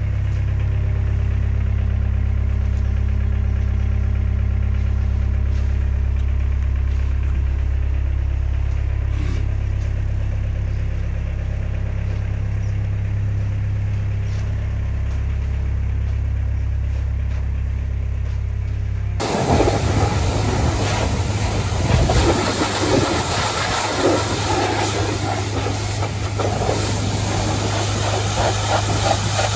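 Tractor engine idling with a steady low drone. About two-thirds of the way through it gives way abruptly to a pressure washer's jet spraying against a compact wheel loader, a louder, rough hissing spray.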